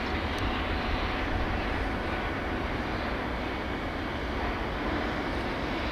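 Jet aircraft flying overhead: a steady engine roar that holds an even level, with a faint thin whine in the middle.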